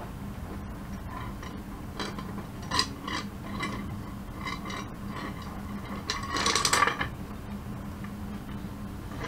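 Plexiglass printer bed and its corner bolts being handled and set onto the bed springs: scattered light clicks and taps, then a longer, louder rattle about six seconds in. A faint steady hum sits underneath.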